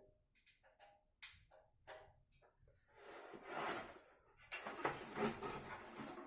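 Parts being handled and adjusted inside a PC case: a few light clicks, then two stretches of scraping and rubbing, the second louder.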